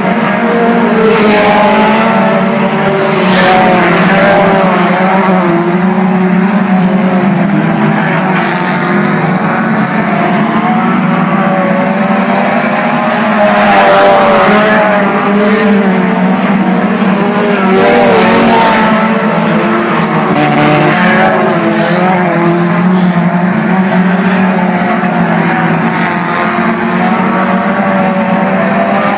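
Several dirt-track race cars running together on the oval, their engines revving up and down as they race through the turns, with a car passing close by every few seconds.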